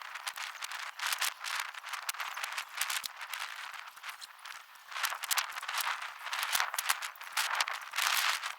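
Plastic packaging bags crinkling and rustling continuously in quick, irregular crackles as the goal's parts are unwrapped.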